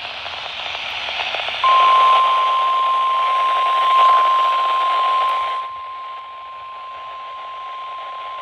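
Weather-radio alert broadcast: static hiss, then, about one and a half seconds in, a single loud steady warning alarm tone that holds unbroken, the attention signal that comes before a new National Weather Service warning. The static falls away partway through while the tone keeps sounding.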